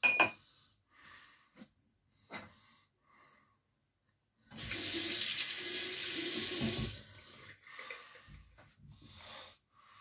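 Bathroom sink tap running in one steady stream for about two and a half seconds, starting about four and a half seconds in, as the safety razor is rinsed between shaving passes. A few small knocks and clicks come before it.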